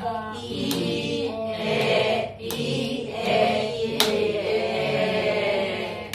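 Several adult voices saying sounds and words together in a drawn-out chorus, ESL learners repeating in unison, with a few sharp taps in between, the loudest about four seconds in.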